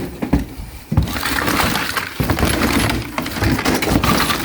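Hands rummaging through a box of used electrical parts: plastic outlets and metal breakers clattering and clinking against each other, with a sharper knock about a second in.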